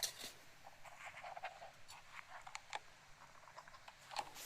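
Irregular light clicks and small crackles, with a sharp click right at the start and another near the end.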